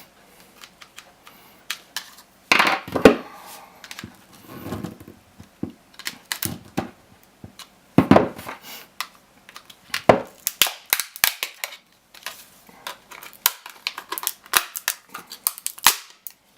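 Plastic casing of a Sony VGP-BPS8 laptop battery pack being pried open, the seams and clips cracking and snapping in a long run of sharp clicks, with a few louder cracks and scrapes between them.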